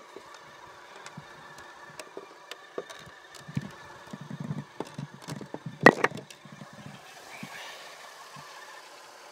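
Clicks and clunks of a car bonnet being released and lifted, the loudest a sharp click about six seconds in, over the faint steady idle of a 2001 VW Golf Mk4's 2.8-litre V6 engine.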